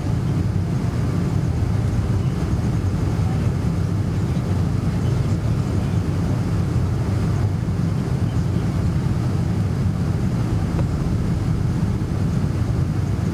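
Steady low rumble of a Boeing 747's engines and airflow heard from inside the passenger cabin.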